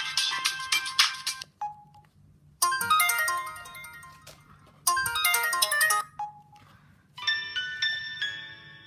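Polyphonic ringtone melodies from a Samsung S3600 mobile phone. One tune cuts off about a second and a half in. After a pause a short phrase plays twice, and a different tune begins about a second before the end.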